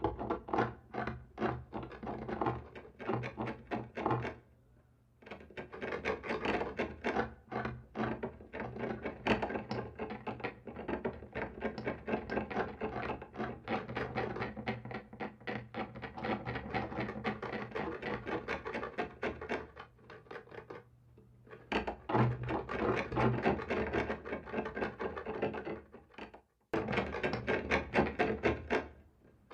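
Rapid, dense scratching and rasping on a wall, stroke after stroke, breaking off briefly three times, with a low steady hum underneath.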